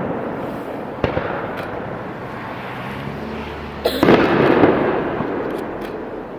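Aerial fireworks bursting: a sharp bang about a second in and a louder one about four seconds in, each followed by a long rolling echo that slowly fades.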